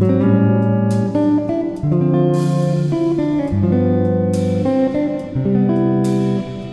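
Background music: a guitar-led instrumental with a bass line, the chords changing about once a second.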